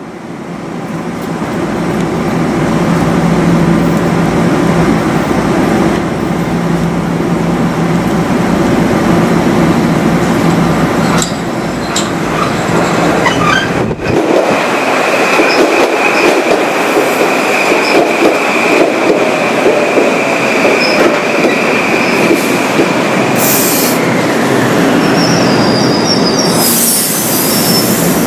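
Metro-North M8 electric train pulling into the station. The loud rolling noise builds over the first few seconds, then a steady wheel squeal runs through the middle for about ten seconds, with higher squeaks and a sharp hiss near the end.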